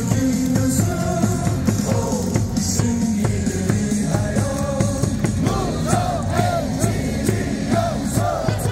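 Upbeat cheering-song music with a steady beat playing over the ballpark's loudspeakers, with singing over it.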